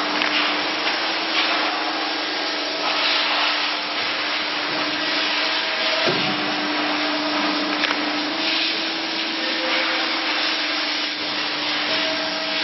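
Hydraulic CNC guillotine shear running: a steady hum and hiss with a low tone, breaking with a sudden change about six seconds in as the machine's cycle starts again.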